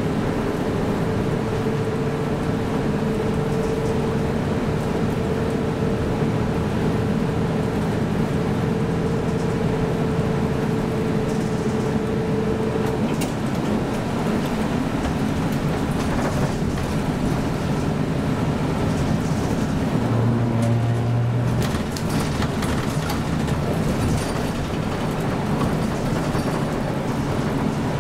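Inside a route bus on the move: steady engine and road noise. A steady whine runs through roughly the first half and then fades out, and a brief low hum comes about two-thirds of the way through.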